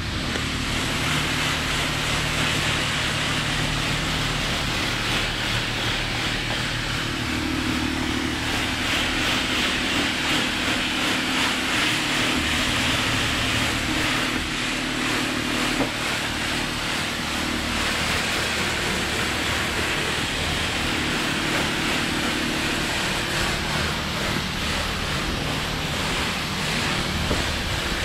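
Car wash spray wand rinsing water over a Jeep's open engine bay and front end: a steady hiss of spray with a low hum underneath, louder for several seconds around the middle.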